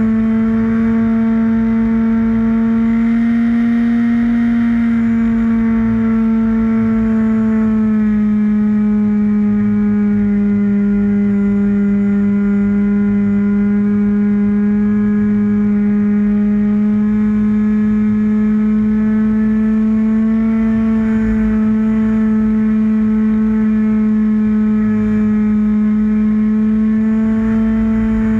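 Radio-controlled model airplane's motor and propeller running at steady flying throttle, heard from on board as a loud, even drone. The pitch drops a little about eight seconds in and then holds.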